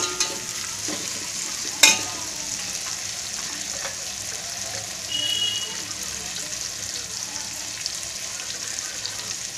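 Sliced onions frying in hot oil in an aluminium pot, a steady sizzle. A steel spatula knocks sharply against the pot once, about two seconds in.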